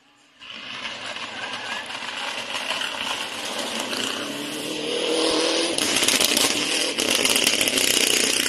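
Mitsubishi Lancer Evolution rally car at full speed on a gravel stage: its turbocharged four-cylinder engine rises and falls in pitch with throttle and gear changes over the hiss of gravel thrown up by the tyres. It cuts in about half a second in and grows louder, loudest near the end as the car goes past.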